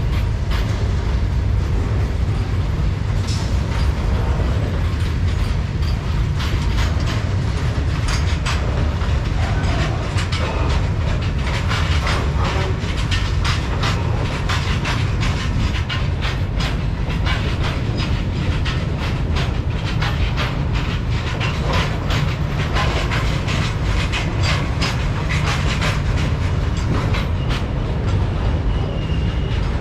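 Freight train rolling past: a steady low rumble of wagons with wheels clacking over rail joints, the clacks coming thicker after about ten seconds.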